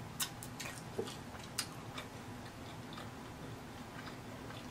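Close-miked chewing of a street taco: soft wet mouth clicks and lip smacks, a few sharper ones in the first couple of seconds.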